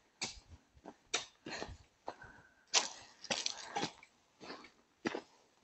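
Footsteps crunching on dry leaves and dry grass on a hillside trail: an irregular series of crackling steps, about two a second.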